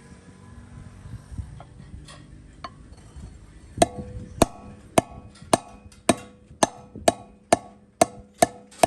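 A hammer striking steel about twice a second, about ten blows starting some four seconds in, each blow leaving a short metallic ring.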